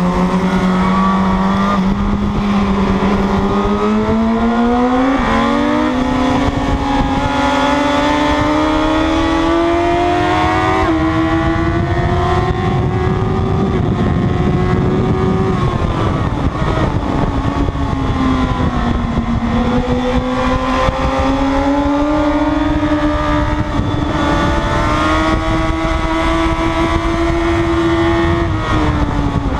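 Sportbike engine heard from onboard at racing speed, its pitch climbing steadily for the first half, falling off after the middle as the bike slows, climbing again and dropping near the end. Heavy wind rush on the microphone, strongest about halfway along the straight.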